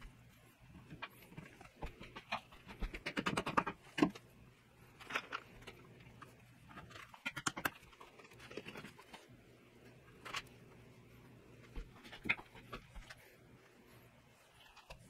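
Scattered bench handling noises during a woodworking glue-up: light knocks and clicks, a short fast rattle about three seconds in, and a sharper knock just after it.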